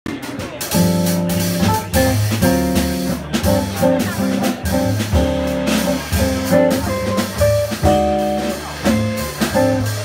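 Live jazz band playing: guitar chords struck in a repeating rhythm over bass guitar and a drum kit.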